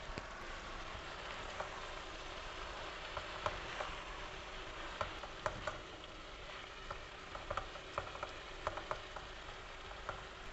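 Mustard greens and potatoes sizzling in a hot non-stick kadai while a silicone spatula stirs them, with a steady hiss and many short taps and scrapes of the spatula against the pan from about three seconds in.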